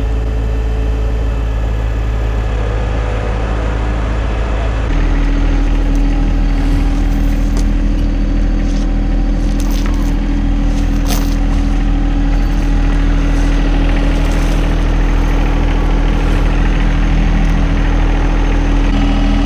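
John Deere 1025R tractor's three-cylinder diesel engine running steadily. About five seconds in, its note steps up to a new steady pitch and gets louder.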